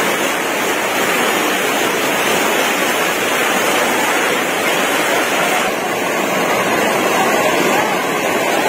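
Muddy flash-flood water rushing in a torrent down a village lane: a loud, steady rush of turbulent water.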